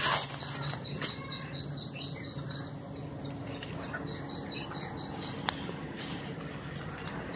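Cricket chirping in two trills of rapid, evenly spaced high pulses, about eight a second: the first starts about half a second in and runs for roughly two seconds, the second comes about four seconds in and lasts about a second.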